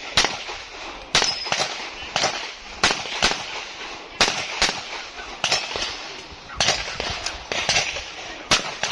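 Semi-automatic pistol shots fired one after another, mostly in quick pairs about a second apart, as a shooter works through a practical shooting stage.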